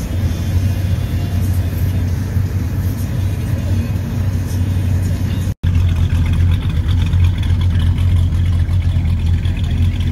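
Steady low engine rumble, like a vehicle idling close by. It drops out to silence for an instant about halfway through, then carries on with a faint higher hiss added.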